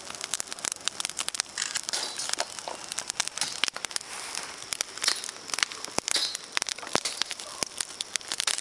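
Dry grass and straw crackling as they burn on a bed of embers: many sharp, irregular crackles and pops over a soft hiss.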